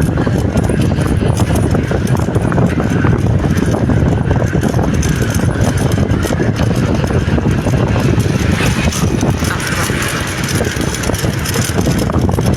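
Steady, loud vehicle and road noise with a low rumble.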